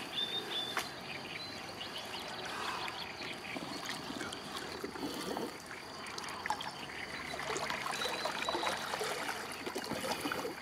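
Shallow water lapping and trickling, with small splashes and drips from hands and waders moving in the water as a large pike is released.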